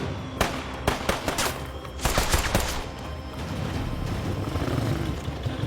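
Gunfire in a film soundtrack: a run of rifle and machine-gun shots through the first three seconds over a tense music score, then a steady low rumble that builds toward the end.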